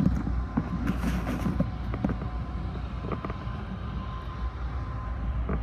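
A steady low rumble with scattered short knocks and rustles from a phone carried by someone walking across dirt.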